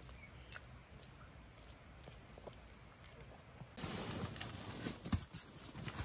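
A small dog gnawing a chew stick, with faint soft clicks of its teeth. About four seconds in, louder rustling and soft thumps as a thick fabric-covered camping mattress is rolled up by hand.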